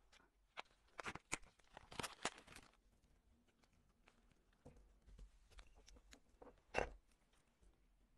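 Small clicks and taps from hands handling a wristwatch and fitting its leather strap to the case: a flurry of light clicks in the first few seconds, a few faint ticks after, then one sharper click near the end.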